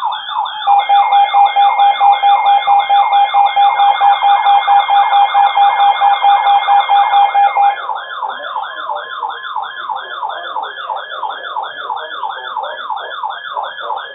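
Electronic siren rapidly sweeping up and down in a yelp, with a steady tone held over it. About eight seconds in the steady tone stops and the siren carries on, slower and quieter.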